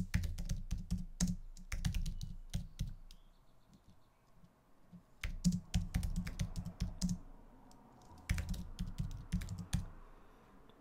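Typing on a computer keyboard: quick runs of key clicks in three spells with short pauses between, as a keyword phrase is entered.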